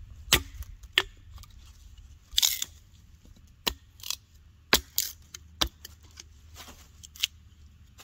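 A dry 2x4 board being struck and split into kindling for a fire: a series of about ten sharp wooden knocks and cracks at uneven intervals, with a longer, hissier crack about two and a half seconds in.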